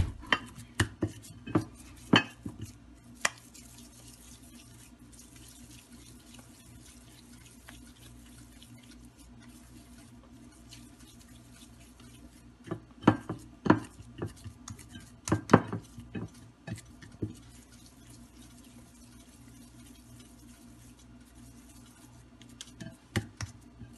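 Seasoned ground beef being divided and rolled into balls by hand in a glass bowl for burger patties: scattered sharp taps and knocks against the glass, in clusters near the start, around the middle and just before the end, over a faint steady low hum.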